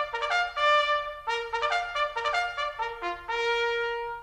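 A short brass fanfare jingle: a quick run of bright notes ending on one long held note that stops near the end.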